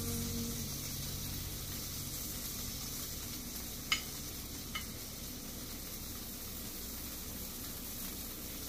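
Tofu and vegetable kabobs sizzling steadily on an electric indoor grill, with two light clicks about four and five seconds in.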